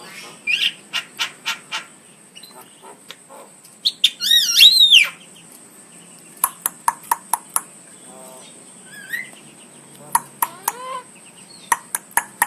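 Javan myna calling: quick runs of short, sharp repeated notes, with a loud burst of whistled notes sliding up and down about four seconds in.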